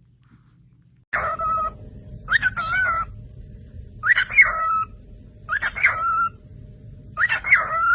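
An animal calling over and over: about five pitched calls, roughly one every second and a half, each rising and then holding steady. The calls start about a second in.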